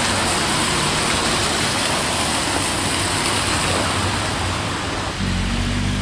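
Steady rushing of storm water running and splashing along a flooded curb, mixed with wet-street traffic. A low steady hum joins near the end.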